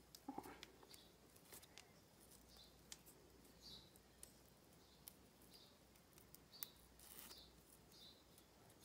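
Near silence, with faint soft rustles and small clicks as a grosgrain ribbon is wrapped and pulled tight around a metal snap hair clip.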